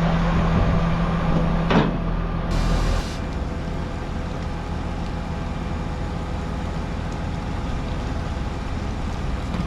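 An engine running steadily, with a low rumble and a steady hum, and a single knock about two seconds in. At about three seconds the hum stops and the engine noise drops a little, then runs on evenly.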